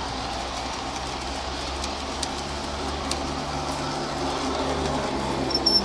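G-scale model freight cars rolling past close by on garden-railway track: a steady rolling rumble and hum, with a few sharp clicks from the wheels.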